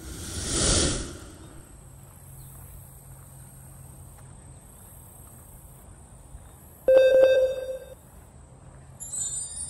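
Outro sound effects: a whoosh that swells and fades over the first second and a half, then about seven seconds in a sudden click followed by a short tone lasting about a second, matching an animated subscribe button. Near the end a bright jingling starts.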